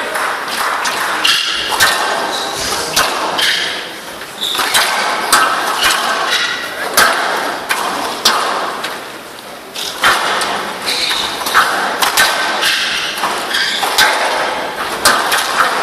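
Squash rally on a glass court: the ball cracks off rackets and walls at irregular intervals, with the players' shoes squeaking on the court floor between shots, in a reverberant hall.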